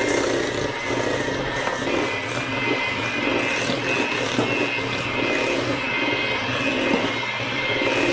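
Electric hand mixer running steadily with a constant motor whine, its beaters creaming softened butter and brown sugar in a stainless steel bowl.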